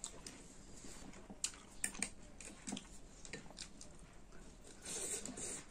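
Close-miked mukbang eating of wild olives (heiyai): scattered sharp clicks and smacks from chewing and from a spoon in a glass bowl, several close together about two seconds in, and a short burst of chewing noise near the end.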